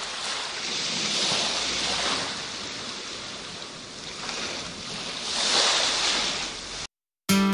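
Ocean surf breaking on a sandy beach: a steady wash of sea noise that swells twice as waves break, then cuts off abruptly near the end.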